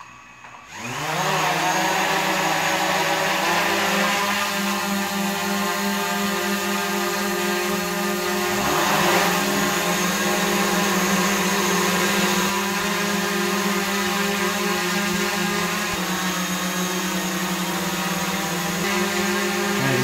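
DJI Mavic Pro quadcopter on its original propellers: the motors spin up about a second in with a rising whine, then the drone hovers with a steady propeller hum made of several pitches.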